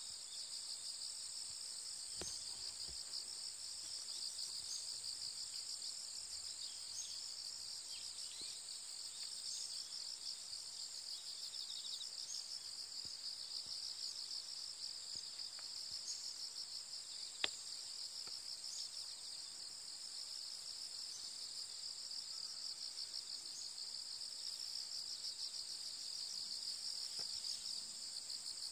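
Steady, high-pitched chorus of insects, a continuous shrill trill, with one sharp click about two-thirds of the way through.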